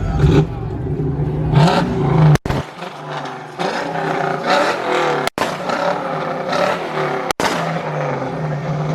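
Car engines running at idle with brief revs, alongside crowd noise. The sound breaks off abruptly three times.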